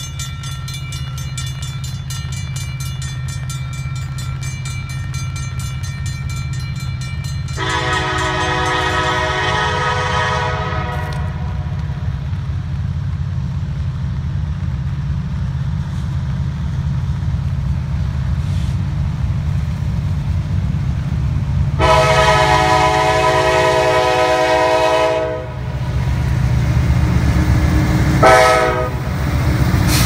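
Diesel freight locomotive approaching with a steady low rumble and blowing its multi-chime air horn: a long blast about eight seconds in, another long one a little past twenty seconds, then a short one near the end. It is the long-long-short(-long) pattern sounded for a grade crossing. At the start a railroad crossing bell rings in a fast, even rhythm.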